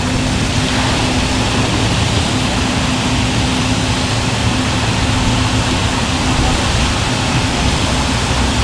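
A boat engine running steadily, its even hum under a loud, constant rush of wind and water.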